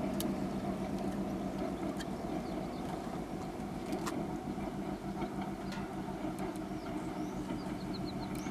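2TE10L diesel locomotive working with a passenger train: its two-stroke opposed-piston 10D100 diesel engine gives a steady drone.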